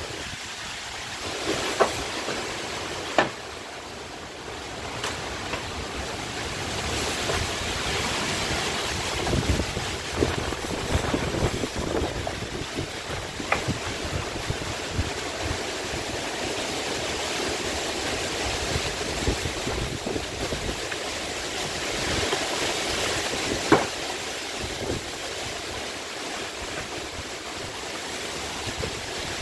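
Storm-force wind rushing through trees and foliage, with driving rain, in a steady roar that swells in gusts. A few sharp knocks stand out, the loudest about three-quarters of the way through.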